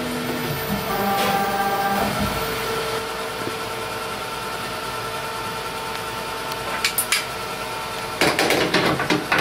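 A FADAL vertical machining centre's stepper-driven axes humming steadily, with a brief higher whine about a second in as an axis is jogged. Short metallic clinks near the end as the metal blank in the vise is handled.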